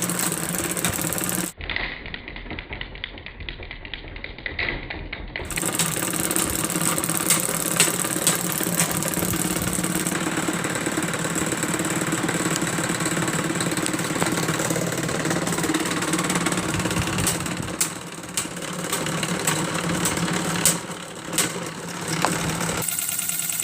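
Old Panasonic electric table fan running with a steady motor hum, with rapid clicking and rattling over it. The sound turns quieter and muffled for a few seconds near the start.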